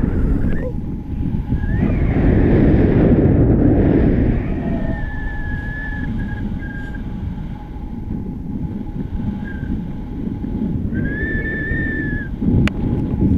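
Wind buffeting the microphone of a camera carried on a paraglider in flight, heaviest in the first few seconds. A thin whistling tone comes and goes, held for a second or two near the middle and again near the end.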